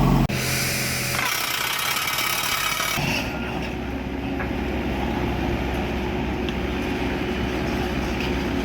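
Diesel engine of heavy construction machinery running. The sound changes abruptly a few times in the first three seconds, then settles into a steady engine hum.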